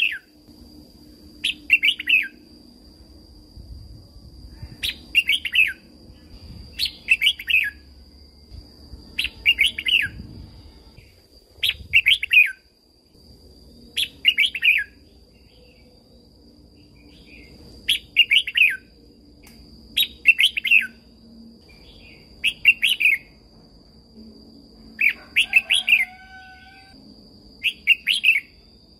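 Red-whiskered bulbul singing short phrases of a few quick notes, repeated about every two seconds. A thin steady high-pitched tone runs underneath.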